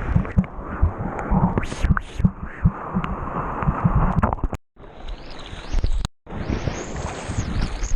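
Typhoon wind gusting hard and buffeting the microphone in a dense rushing noise with low thumps. The sound cuts out briefly twice, about four and a half and six seconds in.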